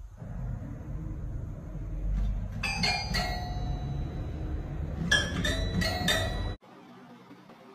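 Toy piano keys pressed by a cat's paw: two clusters of short ringing notes, three or so in each, about two seconds apart, over a low rumble. The sound drops away suddenly near the end.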